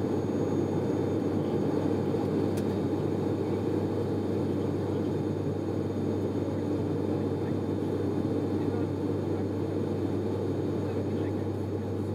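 Cabin noise of an ATR 72-500 climbing after takeoff: the steady drone of its twin Pratt & Whitney PW127 turboprop engines and propellers, with a constant low hum under it.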